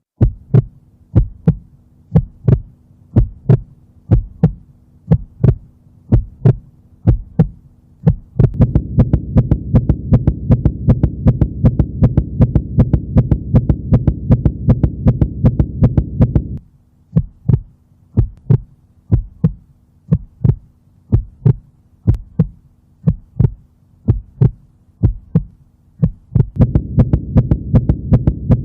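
A heartbeat as heard through a stethoscope, beating regularly. About eight seconds in it turns faster and louder over a low rushing hum, settles back to the slower beat around the middle, and races again near the end.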